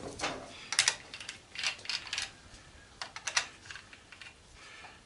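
Light metallic clicks and clacks of hand tools: nut drivers being swapped and fitted onto a nut that none of them fit. The clicks come in irregular little clusters.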